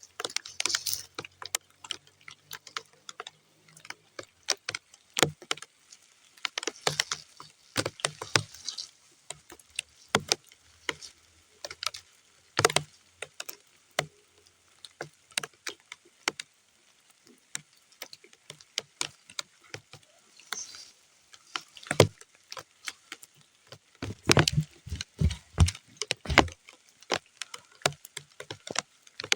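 Raindrops falling on muddy ground: irregular separate drops and patter, thickening into denser clusters now and then.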